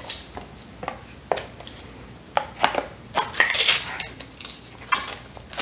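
Small plastic dipping-sauce cup being handled and its peel-off lid pulled open: scattered clicks and crinkling plastic, with a longer crackling peel a little past the middle.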